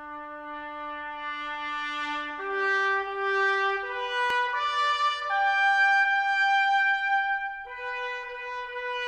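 Background music: a slow melody of long held brass notes, the pitch stepping up to a new note every second or two.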